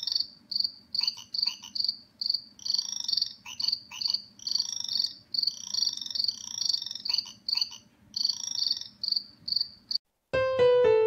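High-pitched chirping in short pulsed bursts, roughly two a second and unevenly spaced, like a cricket. It stops about ten seconds in, and piano music starts shortly after.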